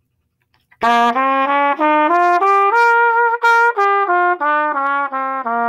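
Trumpet playing a B-flat major blues scale, about fourteen separately tongued notes climbing an octave and coming back down, starting about a second in and ending on a longer low note.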